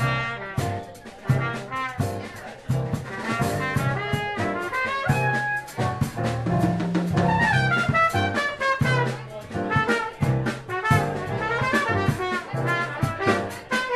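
Live jazz band playing an instrumental passage: drum kit keeping time with steady strikes, electric keyboard and bass guitar, and a lead melody line over them.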